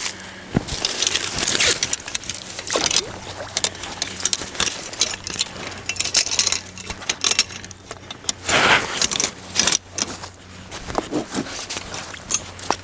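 Duke 330 Magnum steel body-grip trap and its wire clinking and rattling as it is handled and set, with many scattered metallic clicks. Water splashes and sloshes in a few bursts, the biggest about a second and a half in and again about eight and a half seconds in.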